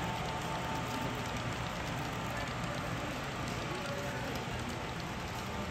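Steady background din of a crowded exhibition hall, with indistinct voices blended into an even noise.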